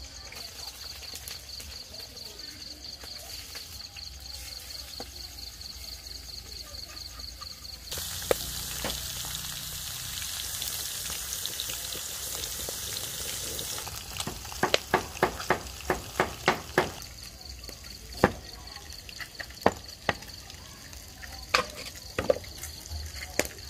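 Fish steaks sizzling in hot oil in a wok, loud for about six seconds after a quieter opening with a faint high pulsing chirr in the background. Then a cleaver chops garlic on a wooden chopping board: fast even strokes, about four a second, then scattered single knocks.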